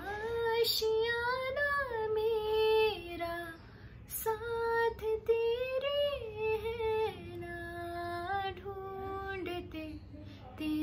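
A young woman singing a Hindi film song solo with no accompaniment, holding long notes that glide and bend between pitches. There is a quick breath between phrases about four seconds in.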